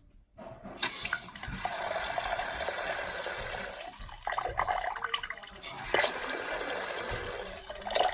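Faucet running into a sink, its water stream turned on about a second in, easing off around four seconds and then running again. This is a test of the faucet just refitted with a new cartridge to cure a slow drip.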